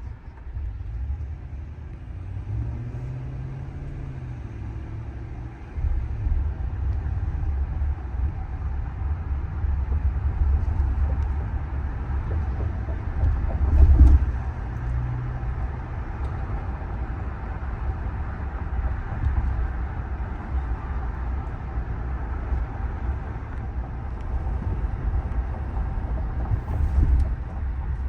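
Cabin sound of a 2023 Ram 1500 Limited pickup being driven: steady low road and tyre rumble with wind noise, and the 5.7 L HEMI V8's note rising and falling briefly twice. The rumble grows louder about six seconds in, and there is a heavy thump about halfway through.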